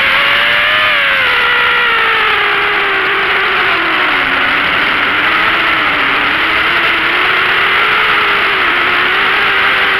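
ZMR250 FPV racing quadcopter's brushless motors and propellers whining, heard from the craft's onboard camera over a steady hiss. The pitch falls over the first few seconds, dips lowest around the middle, then rises again.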